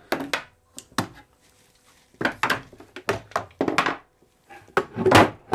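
One-handed trigger-release bar clamps being released and set down on a wooden workbench, with the rocker being worked free of its plywood form. The sound is a series of plastic clicks, clacks and wooden knocks in several bunches, the loudest near the end.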